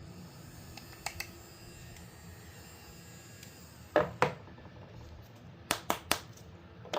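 A series of sharp clicks and taps: a pair about a second in, a louder pair around four seconds, then a quick run of three and one more near the end, over a faint steady background.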